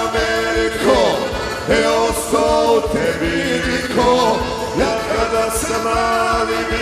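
Live Balkan folk band music on a synthesizer keyboard: an ornamented melody with bending, gliding notes over a steady drum beat, in an instrumental break between sung lines.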